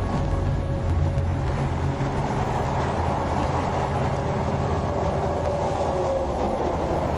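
Steady low rumble of road and engine noise from a moving vehicle, unchanging throughout.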